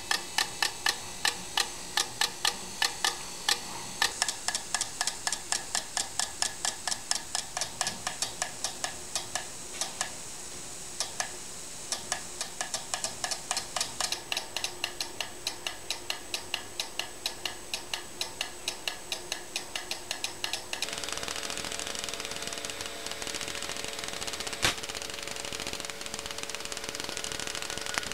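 Airbrush robot spraying a halftone picture dot by dot: its actuated airbrush trigger clicks sharply for each dot, about four clicks a second, with a short pause partway through. About three-quarters of the way in, the clicking gives way to a steady hum with faint rapid ticking and one louder click.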